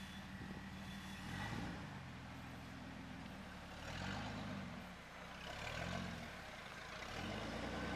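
Lifted Jeep TJ's engine running at low speed while rock crawling, its revs rising and falling several times as the driver gives it brief bursts of throttle.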